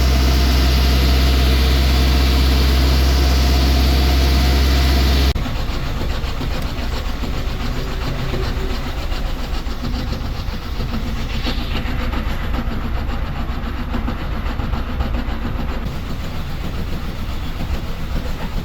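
A steady, low engine drone that cuts off abruptly about five seconds in. After it comes a quieter, uneven rattling mechanical noise.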